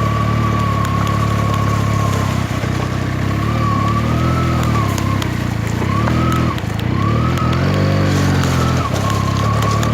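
Benelli TNT 300's parallel-twin engine running under way, with a steady high whine over it. Its pitch rises and falls several times in the middle as the throttle is opened and closed.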